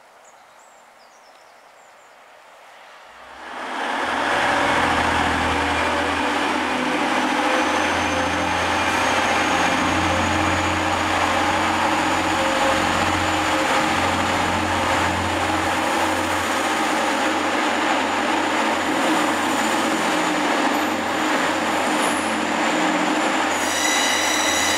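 A quiet start, then about three and a half seconds in the steady running of a TransPennine Express Class 185 diesel multiple unit's engines begins and holds, with a faint high whine above it. A brief high-pitched tone sounds near the end.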